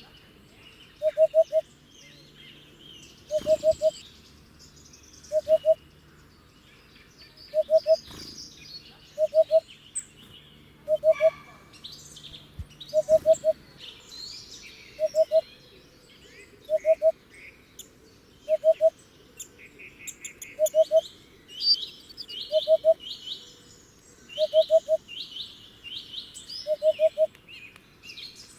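Hoopoe singing its hooting 'oop-oop-oop' song: groups of three short low hoots, repeated about every two seconds. Other small birds chirp and trill higher and fainter behind it.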